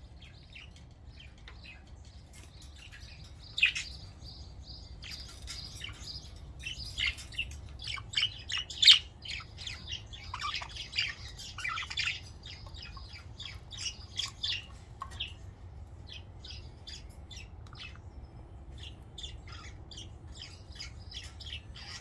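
Budgerigars chirping and warbling, a run of quick short chirps that is busiest in the middle and thins out toward the end, with one louder chirp partway through.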